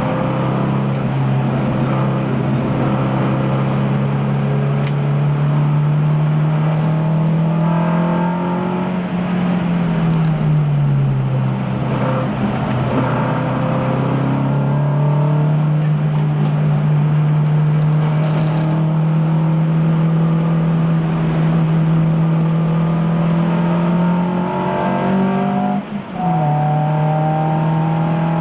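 Onboard sound of a 1971 Alfa Romeo Giulia's twin-cam four-cylinder engine running hard at racing speed, holding a steady high pitch. About ten seconds in the revs fall and then climb again as the car lifts and accelerates, and near the end a brief break in the sound is a quick gear change.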